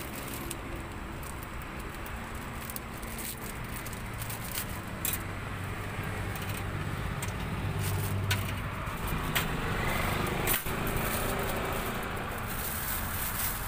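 Metal tongs clicking against a steel wire rack and a plastic bag rustling as fried meatball and sausage skewers are bagged, a few sharp clicks scattered through, over a steady low rumble.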